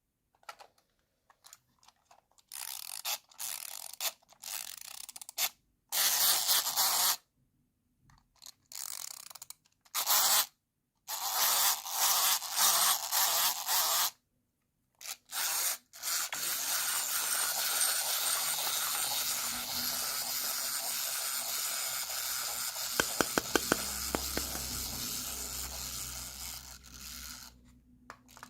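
Plastic toys and packaging scraped and rubbed by hand in short bursts, then a longer continuous scraping stretch with a quick run of clicks a few seconds before the end.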